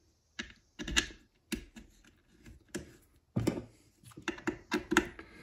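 Irregular light metallic clicks and taps of M4 bolts being set into a plate and hand-started into T-nuts in aluminium extrusion.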